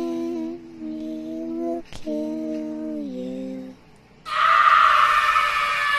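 Eerie horror-style sound effects: a few held, hum-like notes, the last one gliding down. About four seconds in, a loud, harsh shriek starts and slowly falls in pitch.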